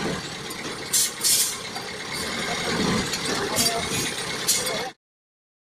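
Engine of a three-wheeled farm tipper truck running with its dump bed raised. Sharp clattering noises come about a second in and twice more later, and the sound stops abruptly near the end.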